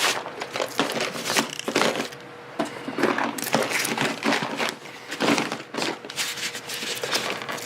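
Plastic tackle boxes knocking and clattering as they are packed into a fabric tackle bag compartment, with the nylon bag rustling between the knocks.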